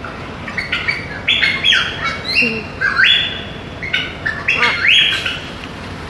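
Blue-and-gold macaw calling: a string of about six loud squawks, starting about half a second in and stopping shortly before the end.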